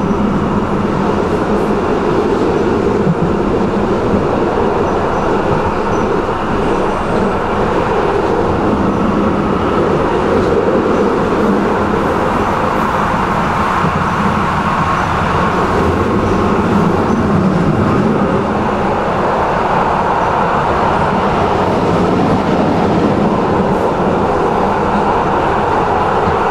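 A tram running along its track, heard from aboard: a steady rolling noise of wheels on rails that stays even throughout.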